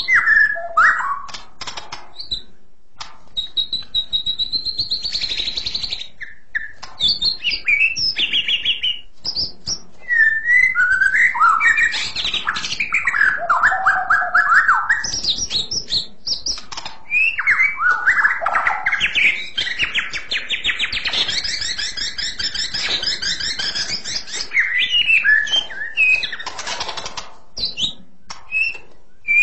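White-rumped shama (murai batu) singing a long, varied song: clear, high-pitched whistled phrases that glide up and down, mixed with rapid trills and warbles, with brief pauses between phrases.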